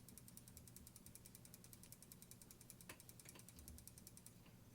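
Regula 25 cuckoo clock movement giving a faint, fast, even run of small ratchet clicks, about ten a second, that stops shortly before the end, with a couple of soft knocks about three seconds in.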